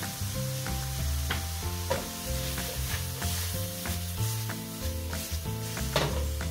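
Chopped wild mushrooms and diced pancetta sizzling in hot olive oil in a frying pan, with light clicks and scrapes as the pan is tossed and the food jumps in it. Background music plays under it.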